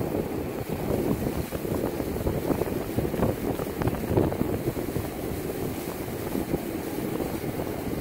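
Wind buffeting the microphone, a low, uneven noise that rises and falls in small gusts, with ocean surf breaking on the beach behind it.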